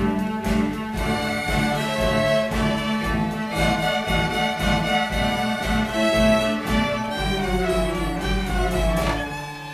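Student string orchestra of violins, violas, cellos and double basses playing, with many held notes over a steady low beat. Near the end the playing drops to a quieter sustained low note.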